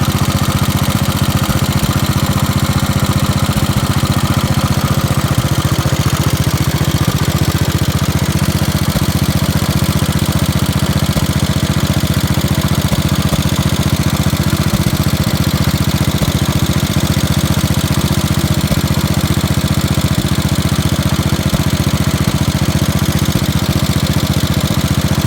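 Freshly rebuilt Kohler K321 single-cylinder engine on a 1969 Gravely 432 tractor running steadily, with an even, rapid firing beat.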